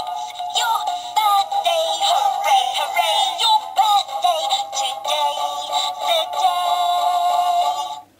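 Talking toy engine Rosie from the My First Thomas & Friends Railway Pals range singing a song in a synthetic voice with music through its built-in speaker. The song cuts off abruptly just before the end.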